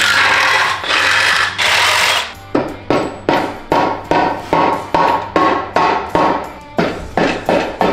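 Mallet blows on the aluminum case of a ZF6 transmission, knocking the case halves apart to break the old seal. About three strikes a second, each with a short ring, starting a couple of seconds in. Before them come about two seconds of loud, rushing noise.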